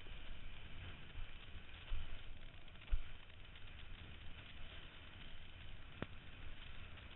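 Wind buffeting the microphone of a head-mounted camera while a kiteboard skims over choppy water, a steady rush of noise with two heavier low thumps about two and three seconds in.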